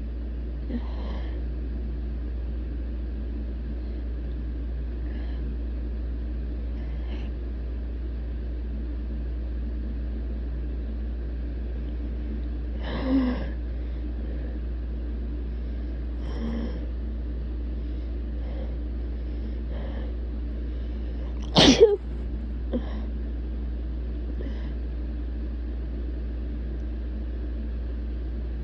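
A person sneezing once, sharp and loud, about three quarters of the way through; the sneeze is brought on by tickling the nose. A softer breathy burst comes near the middle, and a steady low hum runs underneath.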